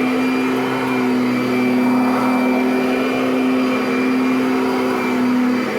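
Kirby Sentria upright vacuum running steadily on carpet, its motor giving a strong even hum with a whine above it. It sounds healthy, and the self-propelled Tech Drive is barely being worked.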